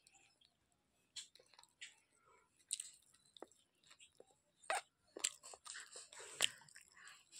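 A toddler chewing small fried fish, with irregular crisp crunches; the loudest come about halfway through and again near the end.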